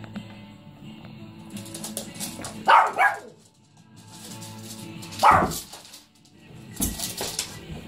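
A small Shih Tzu barking: two quick sharp barks about three seconds in and a third about two seconds later, over steady background music. A few thumps and short bursts follow near the end.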